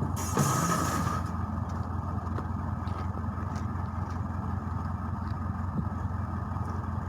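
Case 580K backhoe's diesel engine running steadily at idle, with a short hiss about a quarter of a second in.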